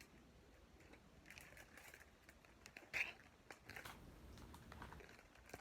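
Near silence with faint paper rustles and a few soft clicks from a picture book being handled, the loudest click about three seconds in.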